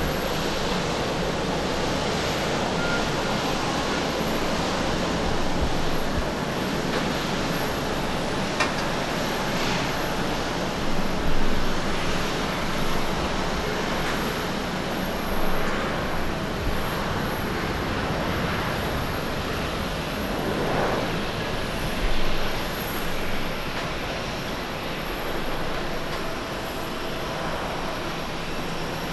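Airbus A320-214 jet airliner's CFM56 engines running as it lands and rolls out on the runway: a steady jet rumble and roar with a few louder swells.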